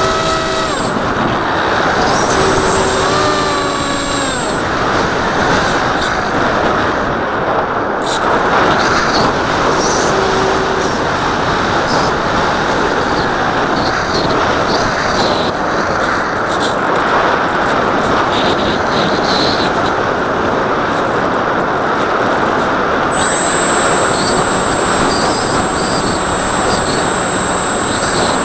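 Wind rushing over the nose-mounted camera of an RC foam plane in flight, mixed with the whine of its electric pusher motor and propeller. The motor's pitch slides down over the first few seconds, and the rest is a steady rush.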